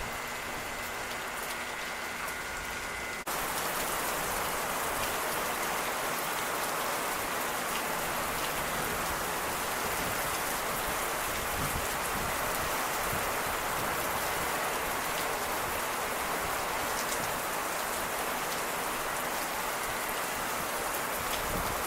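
Steady rain falling, a little louder after an abrupt change about three seconds in.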